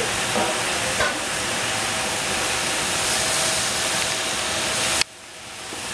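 Chopped chard steaming and sizzling in a stainless steel pot on the stove, a steady hiss. About five seconds in there is a sharp click and the hiss drops away abruptly, then slowly builds again.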